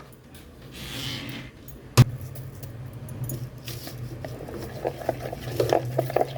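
Kitchen handling: a soft swish, a sharp knock about two seconds in, then a run of small clicks and scrapes of a utensil against a bowl or dish. A steady low hum lies underneath.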